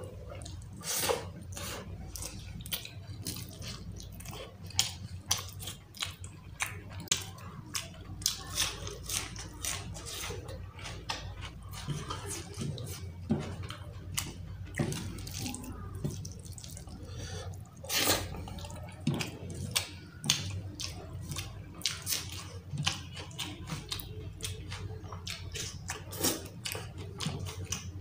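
Wet, sticky clicks and squelches of fingers mixing rice into curry gravy on a plate, and of chewing, coming irregularly several times a second over a steady low hum.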